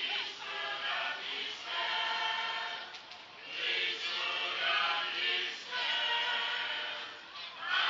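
Many voices singing together as a choir, in long held notes with short breaks between phrases.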